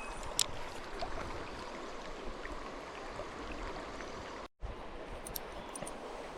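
River water running over shallows: a steady rushing and rippling. It cuts out for a moment about two-thirds of the way through.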